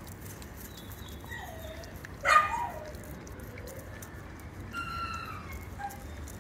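A dog whining and yelping in short cries that fall in pitch. The loudest yelp comes about two seconds in, with softer whines before and after it.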